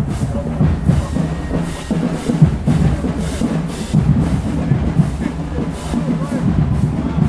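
Marching band playing, led by heavy bass drums and percussion, with cymbal crashes about twice a second.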